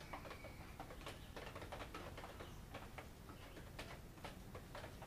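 Faint, irregular clicks and taps, a few a second, of a wooden stir stick working in a small cup of epoxy glaze coat as it is scooped up to wet a table's edges.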